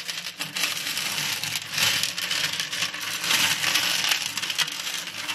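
Small polished decorative pebbles being spread by hand across the dry bottom of an aquarium tank. The stones click and grind against each other in a continuous clatter that swells and eases as the hands sweep through them.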